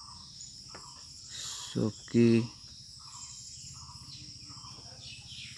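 Ballpoint pen scratching on paper as words are handwritten, in short strokes, over a steady high-pitched chirring in the background. A single spoken word comes about two seconds in.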